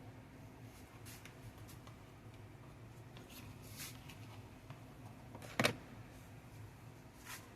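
Kitchen handling noises while a salad is put together: scattered light clicks and rustles over a faint hum, with one sharper, louder knock about five and a half seconds in and a smaller one near the end.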